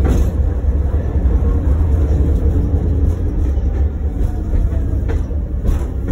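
Tatra T6B5SU tram running, heard from inside the passenger saloon: a steady low rumble of the car on the rails, with a couple of short knocks about five seconds in.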